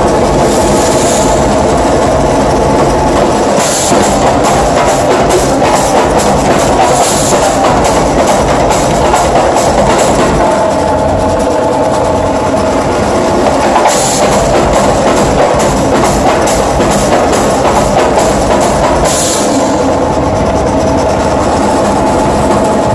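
Live percussion ensemble drumming hard and fast on snares, toms and hand drums in a dense, continuous groove. Cymbal crashes ring out every few seconds.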